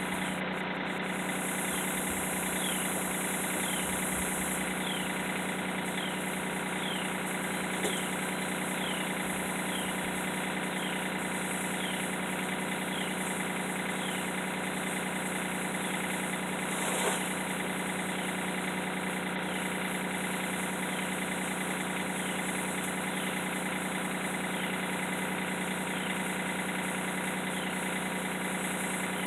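A steady mechanical hum, as from a motor running, with a faint short falling squeak repeating about once a second. Two soft knocks stand out, one about a third of the way in and one a little past halfway.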